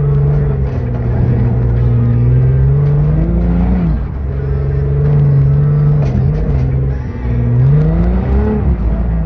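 Dune buggy engine running hard while driving over sand. Its pitch holds steady, then rises and drops off sharply about four seconds in, and rises again near the end.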